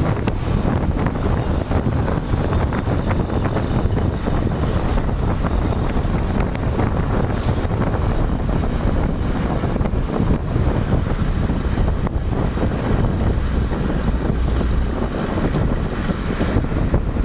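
Steady rumble of highway traffic, with wind buffeting the phone's microphone.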